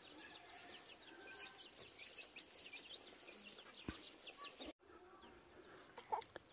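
Faint chirping of small birds, many short calls, with the sound cutting out completely for a moment about two-thirds of the way through.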